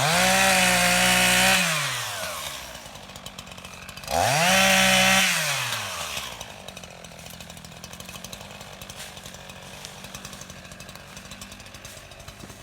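Two-stroke chainsaw revved to high speed twice, each time held for about a second before the pitch falls back, then idling steadily.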